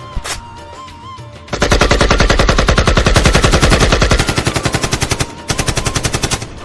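Rapid machine-gun fire, dubbed in as a sound effect. One long burst starts about one and a half seconds in, followed by two shorter, lighter bursts, over background music.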